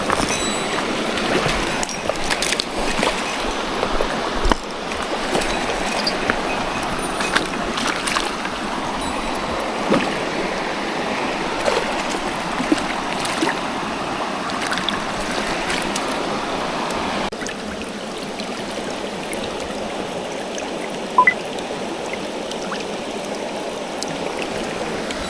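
Mountain stream water rushing steadily over rocks, with a few small clicks and splashes scattered through it; a little quieter from about seventeen seconds in.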